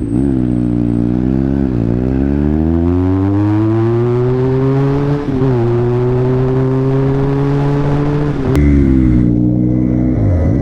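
Motorcycle engine accelerating hard through the gears at full throttle. Its pitch climbs and drops back at each gear change, about two, five and eight and a half seconds in. A sharp click comes near the third change.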